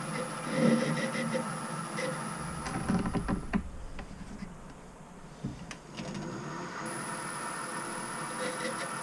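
Myford ML7 lathe running steadily with a high whine during ball-turning of an aluminium handle. It drops away for a few seconds in the middle with a few knocks, then runs steadily again.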